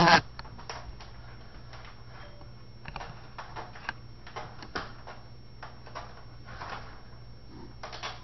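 A cat's claws catching and scratching in a sliding screen door's mesh as it jumps onto it and climbs, irregular clicks and rattles of the screen. The loudest hit comes right at the start as the cat lands on the screen.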